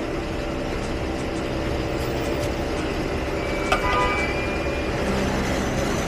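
A steady low mechanical hum. About four seconds in there is a single sharp click followed by a brief high beep.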